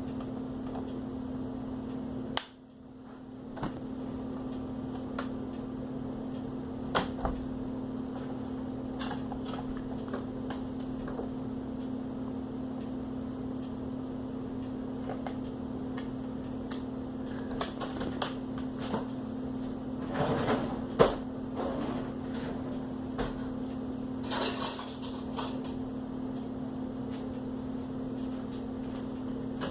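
Scattered plastic clicks and short scrapes from a laptop's screen bezel being pried and worked loose by hand, the loudest cluster about two-thirds of the way in, over a steady low hum.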